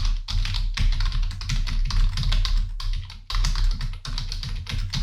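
Fast, continuous typing on a membrane computer keyboard, picked up by a Blue Yeti microphone: a dense patter of key clicks with low desk thumps under them, broken by brief pauses just after the start and around three and four seconds in.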